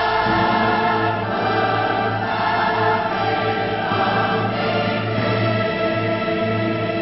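Choral music: a choir singing long held chords, with orchestral backing.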